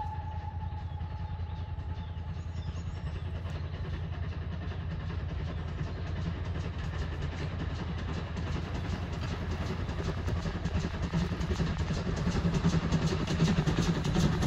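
GWR 57xx-class 0-6-0 pannier tank steam locomotive working toward the listener, its exhaust beats a quick steady chuffing that grows louder as it approaches. The tail of its whistle fades out at the very start.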